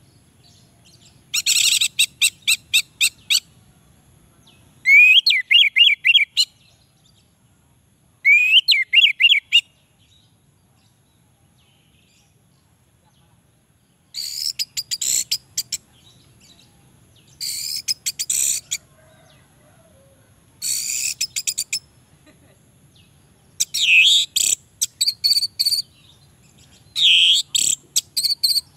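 Orange-headed thrush singing: eight short phrases of rapid, varied chirps and quick whistled glides, each a second or two long with pauses between, and a longer pause in the middle.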